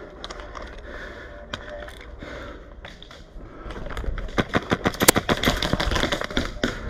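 Airsoft guns firing: scattered sharp cracks, then from about four seconds in a rapid run of shots at roughly nine a second.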